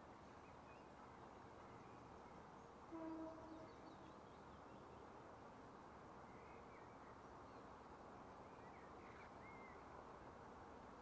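Near silence: faint outdoor ambience with a few distant bird chirps and a brief low tone about three seconds in.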